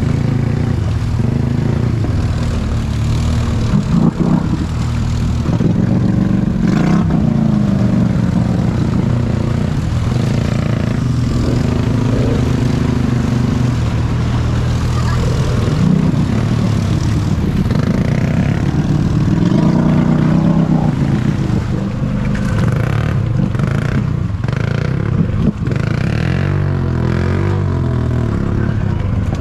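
ATV engine running under changing throttle while being ridden, its pitch rising and falling, with a few sharp knocks.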